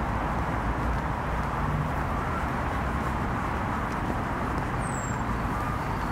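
Steady rumble of road traffic, with a short high chirp about five seconds in.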